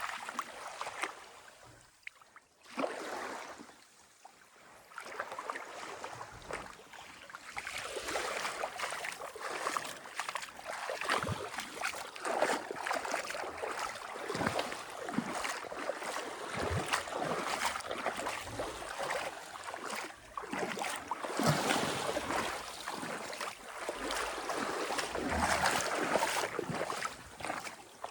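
Sea water lapping and splashing in irregular swells, rising and falling every few seconds, with a quiet lull a few seconds in.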